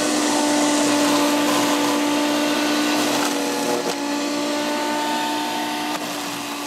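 Small Harbor Freight electric wood chipper running steadily with a motor whine, its blades grinding small moringa branches into chips.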